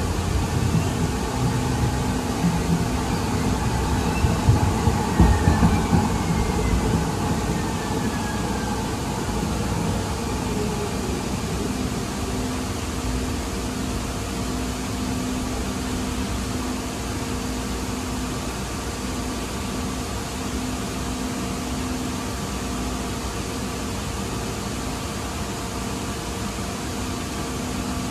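Inside a 2023 Siemens LRV4 light-rail car on the move: a steady rumble of wheels on rail, with the hum of the car's air conditioning and equipment. For the first several seconds the rumble is louder and rougher, with a few knocks and a faint falling whine, before it settles to an even ride noise.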